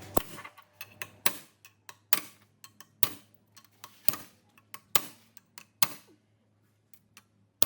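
Repeated sharp knocks about once a second, with lighter ticks between them.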